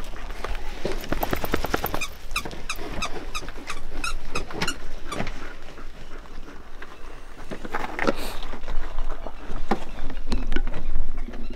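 Dogs moving about on gravel right by the microphone: scuffing, scrabbling steps, with a run of quick, evenly spaced breaths or whines in the first few seconds.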